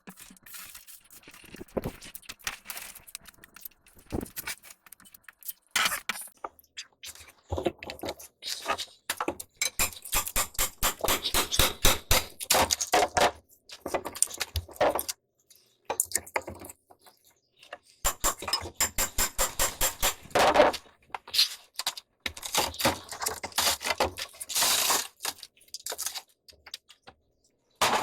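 Bursts of rapid clicking and knocking from tool work on the boat's wood structure, each run lasting a few seconds with short pauses between.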